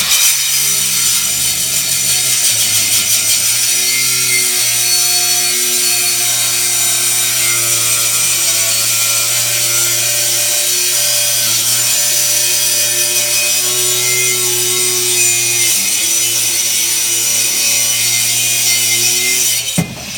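Cordless angle grinder with a 46-grit diamond wheel cutting steadily through a solid wood panel. Its motor pitch sags slightly under load, and it shuts off just before the end.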